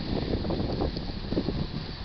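Uneven low rumble of a freight train rolling through a grade crossing.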